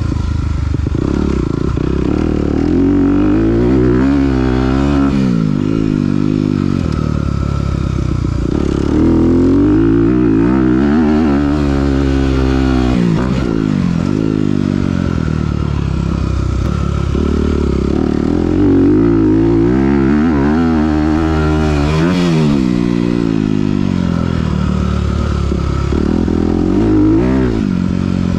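Honda CRF250R's single-cylinder four-stroke engine through a Yoshimura RS9T titanium exhaust, revving hard on a dirt bike ridden around a motocross track. Its pitch climbs and drops again and again as the rider gets on the gas down the straights and rolls off into the corners, with longer pulls about four, ten and twenty-one seconds in.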